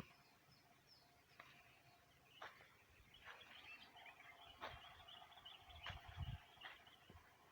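Faint outdoor ambience with distant birds chirping softly, a few light clicks and a low thump about six seconds in.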